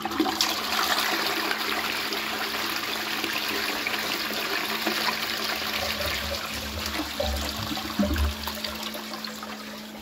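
Qualitas Versailles close-coupled toilet (circa 2002) giving a 6-litre flush through its Fluidmaster dual-flush syphon: water rushes into the pan and swirls down, with a few low gurgles about seven to eight seconds in as the flush tails off.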